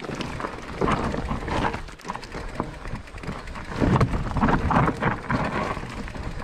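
Electric mountain bike rolling down a rocky trail: tyres crunching over loose stones, with frequent knocks and rattles from the bike as it bounces over the rocks, busiest about four seconds in.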